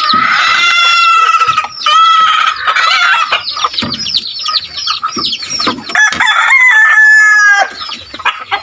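A rooster crowing twice, long drawn-out calls near the start and again about six seconds in, over a flock of chickens clucking and squawking in quick, sharp notes.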